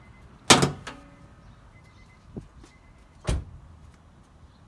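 Three sudden thumps: a loud one about half a second in with a short ringing after it, a faint one in the middle, and a strong one past the three-second mark.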